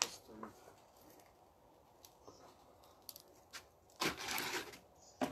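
A garden rake scraping and prodding burning logs and coals in a metal brazier: a short crunching scrape about four seconds in, after a few faint knocks.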